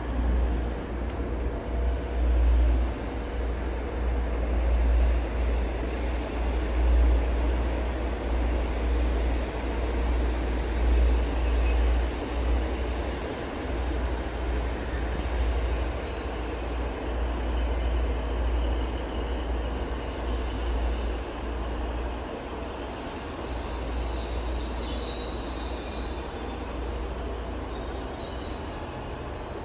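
Passenger train moving slowly through the station, a low rumble that slowly fades, with high-pitched wheel squeal coming and going in the second half.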